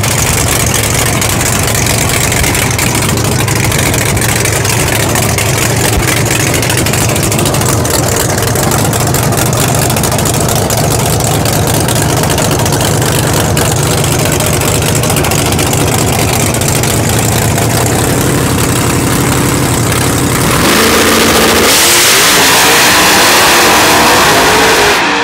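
First-generation Camaro drag car's engine running at the starting line, a steady rumble, then launching at full throttle about 21 seconds in, rising in pitch as it accelerates away down the strip.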